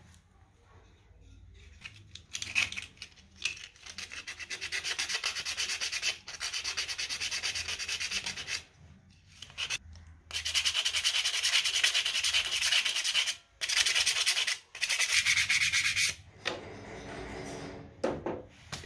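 Sandpaper rubbed quickly back and forth on a dirty part of an old magnetic contactor, cleaning it as a fix for the contactor's humming. The rubbing comes in several spells of rapid strokes with short pauses between, and the last spell is fainter.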